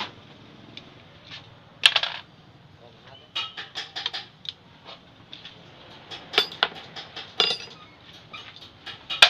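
Irregular sharp metallic clinks and taps of a long steel rod being worked against a scooter's aluminium engine casing and the floor. The loudest knock comes about two seconds in, with clusters of clinks later on.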